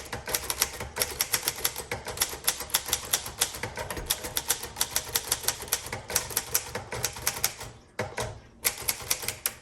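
1950 Underwood Champion manual typewriter being typed on at a fast, steady pace, about six keystrokes a second. The typing pauses briefly near the end, then a few more keystrokes follow.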